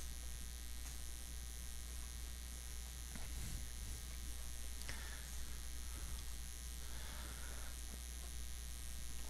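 A steady low electrical hum, with faint soft rubbing now and then as a cloth wipes marker off a whiteboard.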